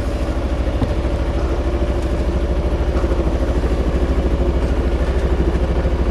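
A boat's engine running steadily under way, with a fast, even chug.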